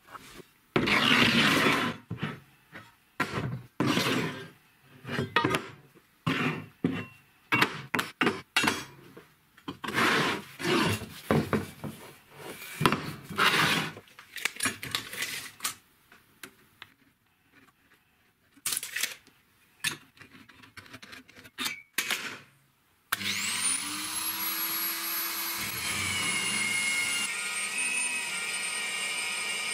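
Irregular scraping and clanking of steel bars and channel being handled on a wooden workbench. About 23 seconds in, an electric drill press starts, its whine rising as the motor spins up, and runs steadily while drilling a steel channel, the pitch shifting as the bit cuts.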